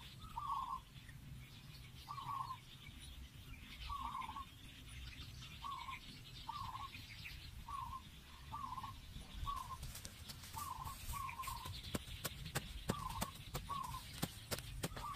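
A bird clucking: short calls repeated about once a second. From about ten seconds in, a run of sharp, irregular taps joins it and gives the loudest peaks.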